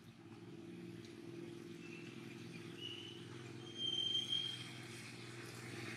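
A steady low hum, with a few short high-pitched chirps over it; the loudest chirp comes about four seconds in.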